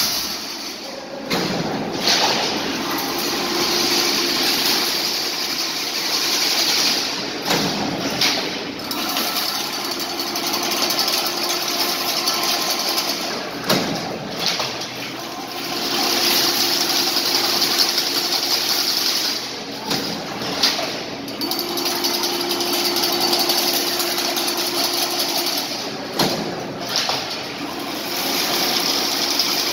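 Automatic chain-link fence making machine running in a repeating cycle of about six seconds: a steady hum with a high hiss for several seconds, then a few sharp knocks, over and over.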